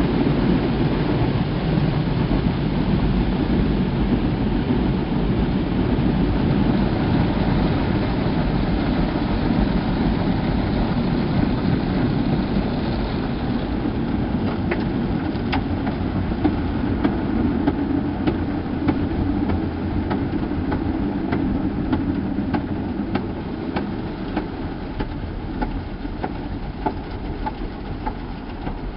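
Automatic car wash machine running, with water spraying over the car and a steady low hum. About halfway through the spray eases off and the sound thins, leaving the hum and scattered sharp ticks.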